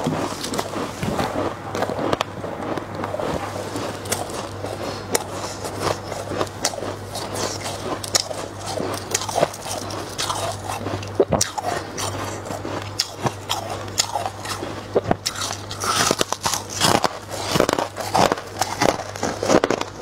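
Freezer frost being scraped up by hand and bitten and chewed close to a clip-on microphone: a dense run of sharp, crisp crunches and crackles, thickest in the last few seconds. A steady low hum sits underneath.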